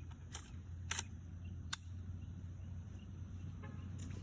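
Outdoor background with a steady low hum and a thin, steady high-pitched whine, broken by three sharp clicks in the first two seconds and a few faint ticks near the end.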